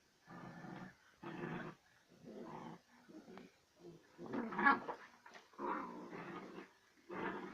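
A dog growling in short repeated bouts, roughly one a second, the loudest about halfway through.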